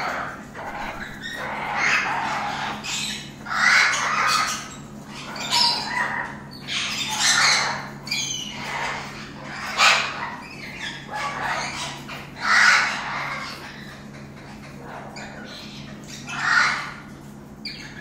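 Yellow-crowned Amazon parrot squawking repeatedly, a call every second or two, with a pause of a few seconds near the end.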